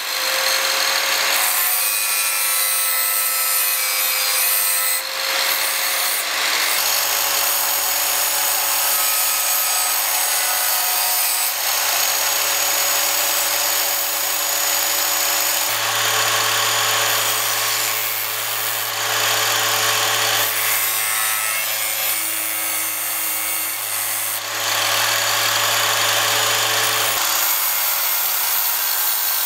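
A 14-inch 1200 W abrasive cut-off saw running, its spinning abrasive wheel grinding the edge of a steel knife blank pressed against it. Steady loud grinding over the motor's whine, easing off briefly a couple of times as the blade is shifted.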